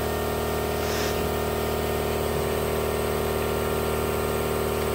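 A motor running steadily with an unchanging pitch and level.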